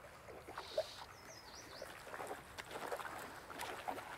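A hooked trout splashing and thrashing at the surface of a small river, heard as faint scattered splashes over the wash of running water, busier in the second half.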